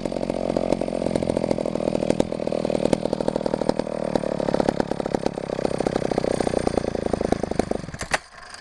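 Vintage McCulloch 1-50 chainsaw's two-stroke engine running, then cutting off suddenly about eight seconds in, with a sharp click as it stops.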